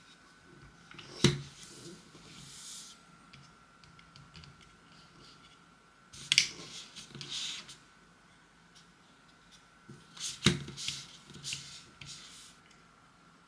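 Hands handling small hard objects on a work surface: three sharp knocks about a second, six seconds and ten seconds in, each followed by brief rustling and scraping, over a faint steady whine.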